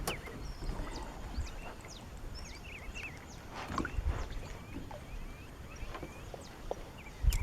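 Small birds chirping, with many short, high, quick calls, over a few dull low knocks, the loudest just before the end.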